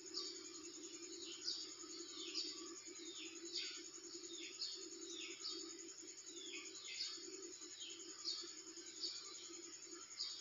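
Birds chirping again and again, short calls that fall in pitch, over a steady low hum.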